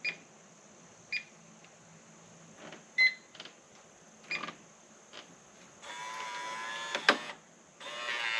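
Reliabilt electronic keypad deadbolt: a few short keypad beeps, then its motor drives the bolt for about a second, stopping with a sharp clunk, and starts driving it again near the end. This is the lock running its bolt to learn the door's handing (orientation) after programming.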